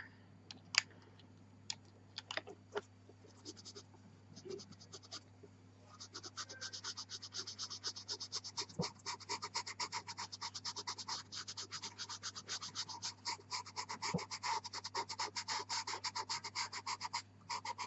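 Pastel pencil scratching over black velour pastel paper as pigment is worked in. There are a few scattered strokes at first, then from about six seconds in a steady run of rapid short strokes, several a second.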